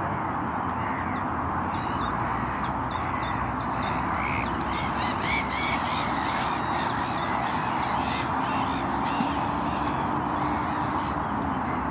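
A bird chattering in quick runs of short, high notes, busiest in the middle, over a steady background hiss. A faint, steady low hum comes in about eight seconds in.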